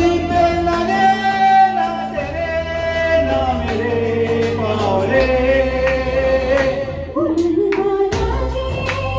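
Hindi film song: sung vocals with long held, gliding notes over instrumental backing with bass and regular percussion.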